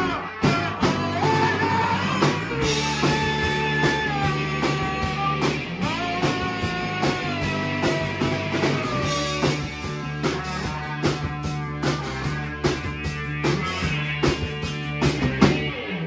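A rock band playing live: electric guitar, bass guitar and drum kit, with a man singing.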